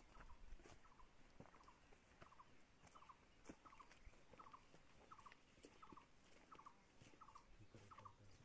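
Near silence: a faint, evenly repeated chirp, a quick three- or four-note trill about one and a half times a second, from a bird or insect, with scattered faint crackles of footsteps in dry brush.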